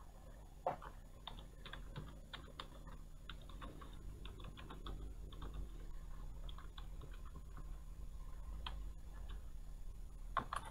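Computer keyboard typing: a quick run of key clicks, with a sharper key press about a second in and a couple more near the end.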